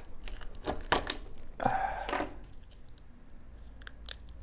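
Dried beaver castoreum sac being cut with a blade and torn open by hand: a few sharp crackling snaps and a rough tearing crunch in the first two seconds, then a few faint clicks.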